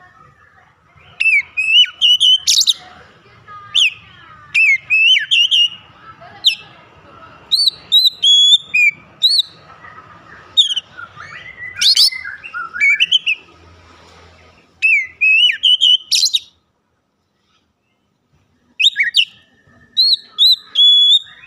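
Oriental magpie-robin in full song: a fast run of loud, clear whistled notes that slide up and down, in phrases with short pauses. It breaks off for about two seconds and then gives a few more notes near the end.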